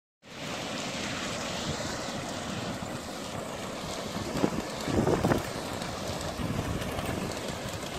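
Wind buffeting the microphone over the wash of breaking surf, with a couple of brief louder bursts about halfway through.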